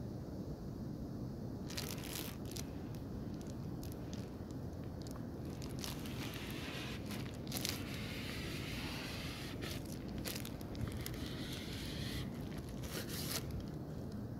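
Clear plastic packaging sleeve crinkling and tearing as hands work it off a fishing pole, in irregular crackles and rustles that stop near the end, over a steady low background rumble.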